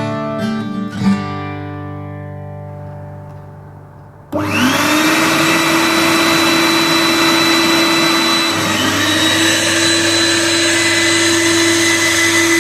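Acoustic guitar music fades out. Then a Skyvac gutter vacuum's motor switches on with a rising whine that settles into a loud, steady suction rush, and a second rising whine joins about four seconds later.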